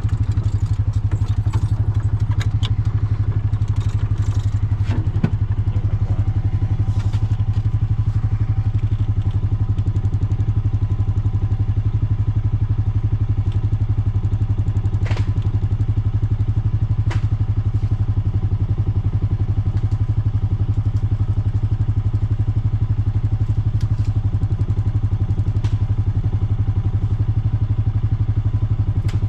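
A vehicle engine running steadily with a low, even drone. Several knocks and rattles come in the first few seconds, with single ones later.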